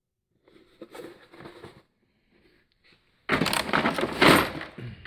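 Steel tool chest drawer sliding on its runners with a loud rattling scrape, after a few faint knocks.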